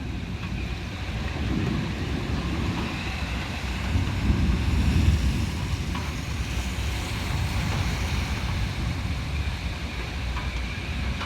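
Storm wind gusting against the microphone in low, buffeting surges, over a steady hiss of heavy rain.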